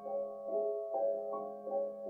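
Grand piano playing a slow, even pattern of notes, about two to three a second, over a held low note.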